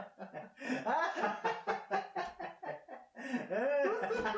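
Two men laughing mockingly, a long run of rapid 'ha ha ha' with a short break about three seconds in.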